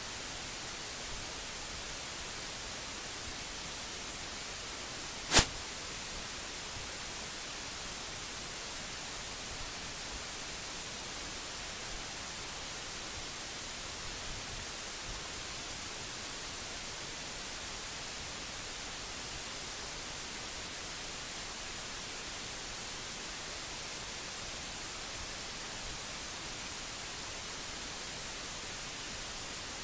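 Steady hiss from an open microphone, broken once about five seconds in by a single sharp click.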